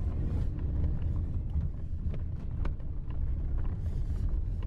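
Low steady rumble of a car rolling slowly along a dirt track, heard from inside the cabin, with scattered light clicks and ticks over it.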